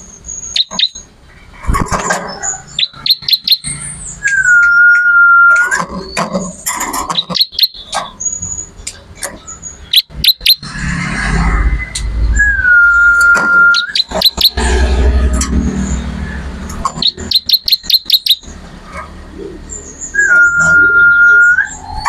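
Caged ciblek (bar-winged prinia) singing loudly. Bursts of rapid, sharp ticking notes alternate with scattered chirps and three long, level whistled notes, each rising into a held tone for about a second and a half. Low rumbles come in twice near the middle.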